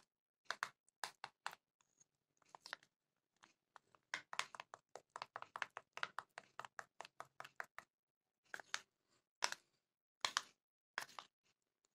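Metal spoon scraping and clinking against a ceramic bowl while stirring flour into oil to make a thick paste. Light, quick strokes about five a second through the middle, then a few separate, sharper clinks near the end.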